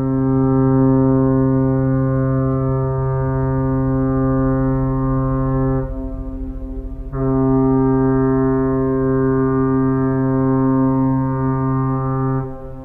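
Long, drawn-out fart sound effect: a loud, steady, buzzy low-pitched blast that sags for about a second midway, swells again, then drops and trails off weaker near the end.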